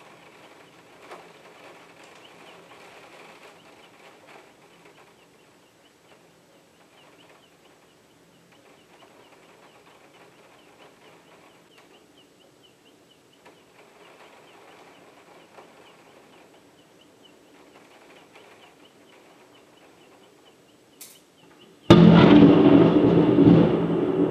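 Faint birdsong over quiet storm ambience, then about 22 seconds in a sudden, very loud thunderclap from a close lightning strike that keeps rumbling as it slowly fades. A short sharp tick comes a second before the clap.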